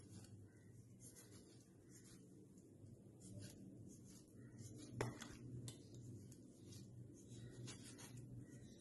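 Near silence: faint rubbing and scratching of hands handling raw fish on a plastic tray, with scattered light ticks and one sharper click about five seconds in, over a low steady hum.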